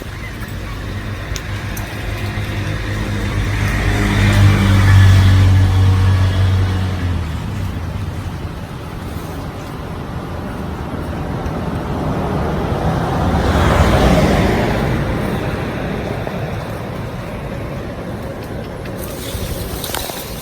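Two road vehicles pass one after the other. The first is an engine hum that swells to a peak about five seconds in and fades. The second is a rushing sound that peaks about fourteen seconds in.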